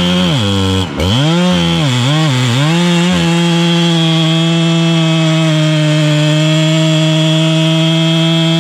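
Gas chainsaw at full throttle, its engine note dipping sharply several times in the first three seconds, nearly dropping out about a second in, as it bogs in the cut; it then runs steady at high revs.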